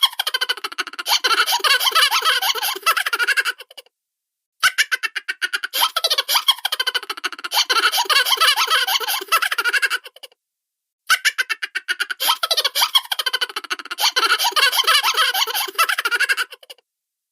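High-pitched cartoon character laughter: rapid giggling and chuckling, heard three times with short silent breaks between.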